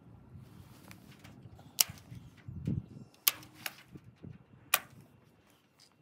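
Four sharp, separate clicks spaced unevenly over a low rustling.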